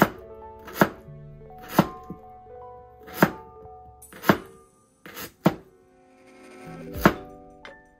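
Chef's knife slicing through a radish and striking a wooden cutting board, about eight cuts at an uneven pace of roughly one a second, over background music.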